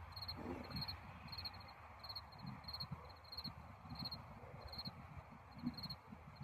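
Crickets chirping outdoors in a steady series of short, high chirps, about two or three a second, with faint low thumps beneath.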